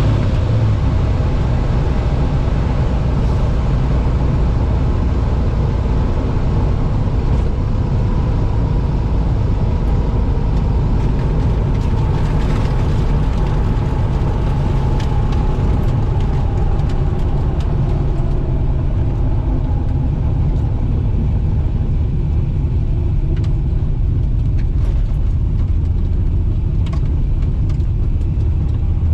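1968 Pontiac Firebird's engine running steadily with a low, even rumble, without hard revving.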